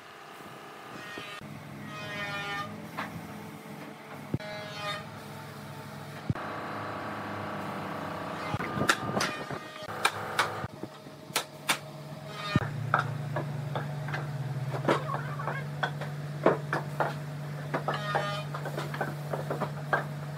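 A machine's steady low hum, growing stronger about twelve and a half seconds in, with many sharp knocks and clacks scattered through it and a brief held tone midway.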